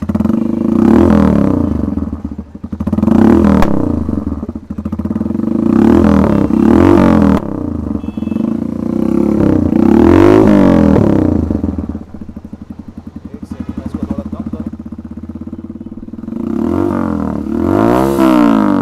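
Single-cylinder Yamaha YBR motorcycle engine running through an SC-Project extended slip-on exhaust with a bent tip, held on by hand. The throttle is blipped several times, each rev rising and falling back, with a steady idle between them from about twelve to sixteen seconds in.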